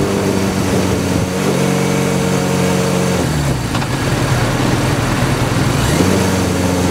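1983 Suzuki GS1100GK's air-cooled inline-four engine running at road speed, with wind rushing over the microphone. The engine note falls about three seconds in as the throttle eases and climbs again near the end.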